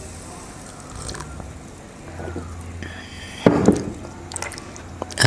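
A man drinking cola from a glass: faint sips and swallows, then a louder sudden knock with clicks about three and a half seconds in as the glass is set down on the table.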